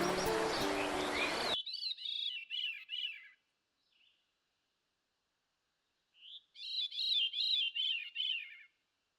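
A songbird singing two phrases of quickly repeated rising-and-falling notes, with a pause of a few seconds between them and a short single call in the gap. Music cuts off suddenly about a second and a half in.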